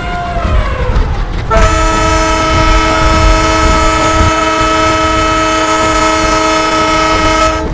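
Train air horn sounding one long chord of several steady notes for about six seconds over the train's low rumble, cutting off abruptly near the end. Before the horn, about a second and a half in, a pitched call slides downward.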